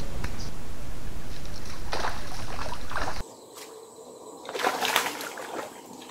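A steady low rumble, then, a little under five seconds in, a sudden splash in shallow river water as something thrown by hand from the bank lands in it.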